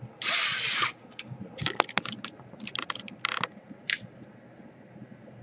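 Small sharp clicks and clatters of screws and a screwdriver being handled on a laptop's plastic case, after a short scraping hiss near the start.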